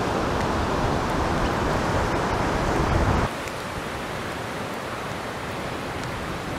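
Wind blowing across the microphone: a steady rush with a low rumble that drops abruptly to a quieter, even wind hiss a little over three seconds in.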